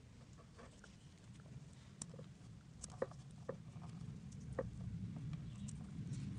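Scattered small clicks and light rustling from fingers twisting a thin wire around the shank of a small fishing hook, over a low steady hum.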